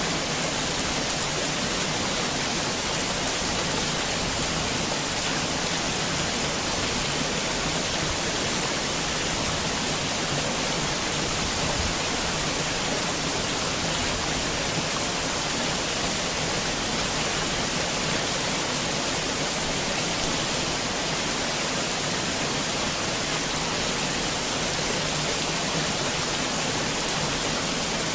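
Steady heavy rain falling, a dense even hiss of drops with no thunder and no change in loudness.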